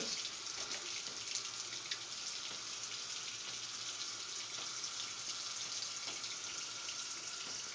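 Bathroom sink tap running steadily, water pouring into the basin for rinsing the razor.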